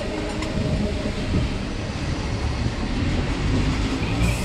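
DC EMU suburban train running on the rails: a steady rumble of wheels on track with a few clicks, heard from beside the tracks as it runs close alongside another EMU train.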